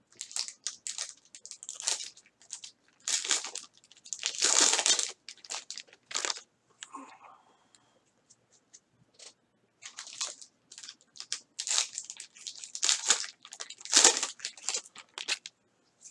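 Gloved hands opening and sorting 2017 Panini Prizm football card packs: foil pack wrappers crinkling and tearing and cards rustling against each other in irregular bursts, loudest about four seconds in and again near the end.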